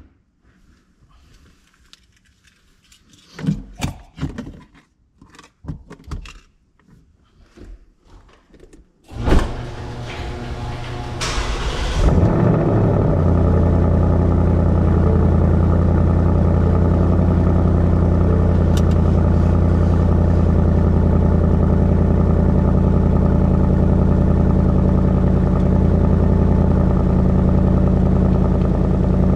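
A few scattered knocks and clicks, then about nine seconds in the 2023 Mustang GT's 5.0-litre V8 starts, flares briefly, and from about twelve seconds in runs at a loud, steady idle.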